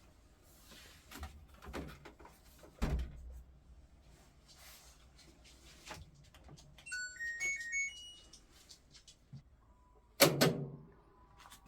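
Washing machine being handled: several knocks and a heavy low thump, then a short stepped electronic beep melody from the control panel about seven seconds in, and a loud thud near the end.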